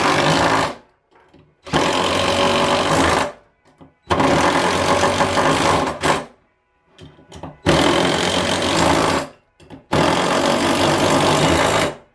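Impact driver hammering hex thread-forming bolts into a Leslie RS power chamber's nozzle housing, the bolts cutting their own threads as they go. It runs in repeated bursts of one to two seconds, five in all, with short pauses between.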